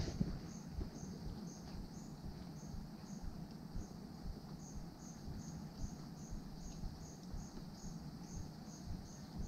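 An insect chirping: a steady series of short high chirps, about two to three a second, over low background noise.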